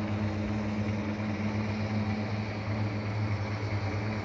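Aircraft engine drone, steady and unbroken, with a low hum under a broad rushing noise.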